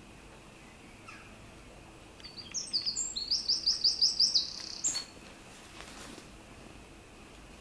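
A songbird singing one short phrase of about ten quick, high chirps, starting about two seconds in and lasting close to three seconds, over faint outdoor background noise.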